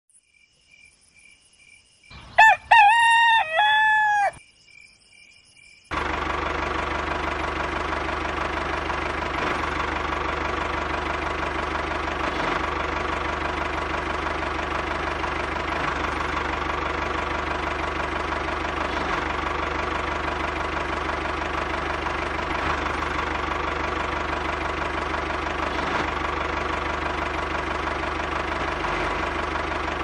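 A rooster crows once, about two seconds in. From about six seconds a steady droning hum with fixed tones starts and holds at an even level.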